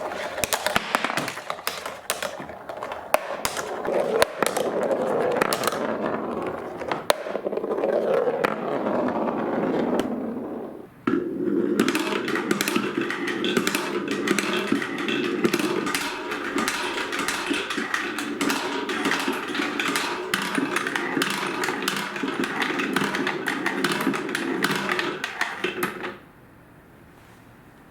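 Marbles rolling and clattering down a wooden marble run, with many small clicks as they knock along the track. After a brief dip about ten seconds in, a steadier rolling rumble with rapid clicking follows, then it stops abruptly near the end.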